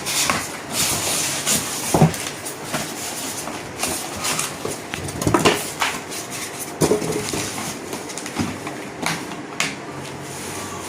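Handling noise of a steel-bodied platform scale being lifted out of its box: scattered knocks, clicks and scrapes of metal and packaging, with the sharpest knocks about 2, 5½ and 7 seconds in.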